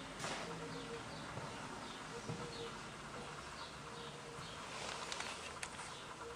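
Faint birds chirping, with short repeated calls over a steady low background.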